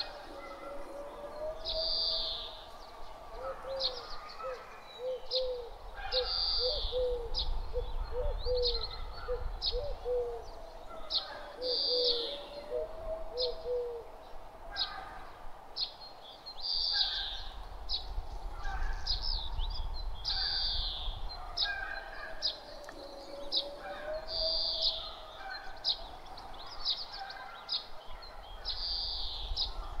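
Nature ambience of birds chirping again and again, with a run of short, lower-pitched calls in the first half, over a low rumble of a light breeze.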